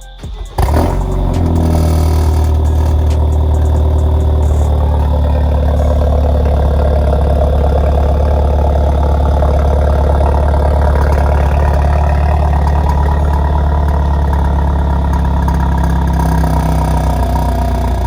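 BMW 428i's N20 2.0-litre turbo four-cylinder starting about half a second in, on its first start with a catless downpipe fitted. It then settles into a steady, loud idle through the straighter exhaust.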